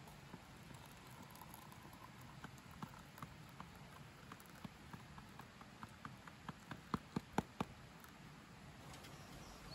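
Hot water poured from a stainless steel kettle into ceramic mugs: a faint stream with a run of small plinks that grow louder about seven seconds in, then stop.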